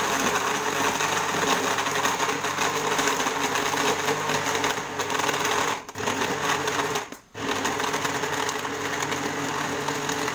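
Electric countertop jug blender running on its first (juice) speed setting, blending avocado, milk and ice into juice: a steady motor noise that drops out briefly twice, about six and seven seconds in, then runs on.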